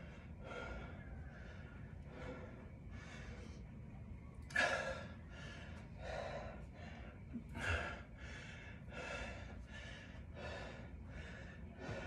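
A man breathing hard and fast while resting, out of breath after a set of burpees: a steady run of short breaths, a little over one a second, with two louder exhalations partway through.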